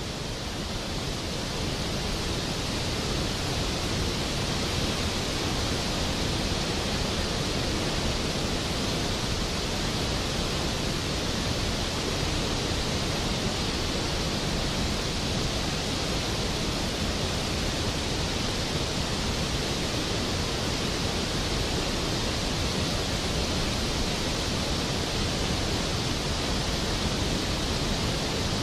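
Waterfall and rapids rushing steadily through a rocky gorge, an even hiss of falling water that fades in over the first second or two.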